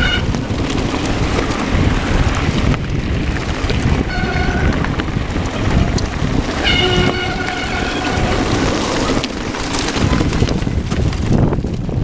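Heavy wind buffeting on an action camera's microphone mixed with the rumble and rattle of a mountain bike descending a rocky gravel trail at speed. Two brief high squeals cut through, about four and seven seconds in.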